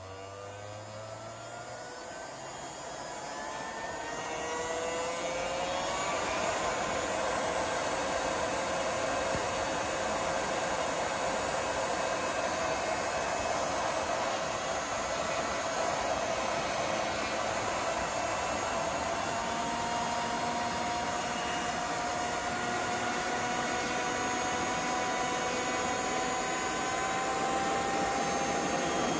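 3D-printed single-stage centrifugal turbo compressor, driven by an electric motor at 7.2 V, spinning up with a rising whine over the first few seconds. It then runs steadily, its whine creeping slightly higher over a rush of air. It moves air but builds almost no pressure.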